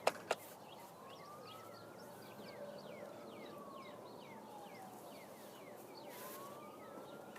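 A faint siren wailing slowly up and down: it rises, falls over a few seconds, then rises again. Over it, a bird gives short falling chirps, about three a second.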